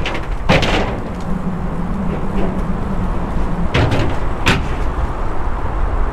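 HP Velotechnik Scorpion fs20 recumbent trike rolling over the bumpy floating walkway: a steady low rumble, with sharp knocks about half a second in and twice around four seconds in as the wheels strike joints and plates in the deck.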